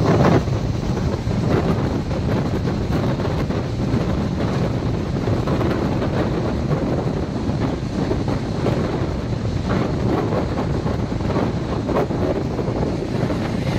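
Passenger train running at speed, heard from the side of the coach: a steady rumble of the wheels on the track with wind buffeting the microphone.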